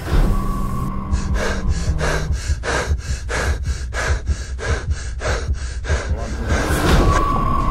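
A person gasping for breath, quick heavy breaths at about three a second, over a low rumble, with one louder burst near the end.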